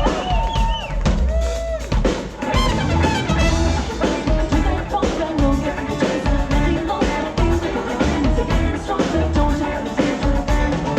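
Live Latin pop band playing an upbeat dance number with a steady drum beat.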